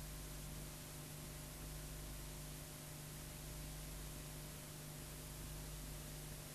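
Steady hiss with a low, even electrical hum: the background noise of the recording, with no other sound standing out.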